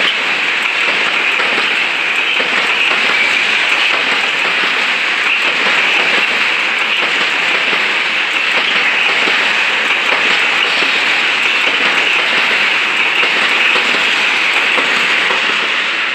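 Tank wagons of a freight train rolling past close by: a steady, even rushing noise of steel wheels on the rails that does not let up.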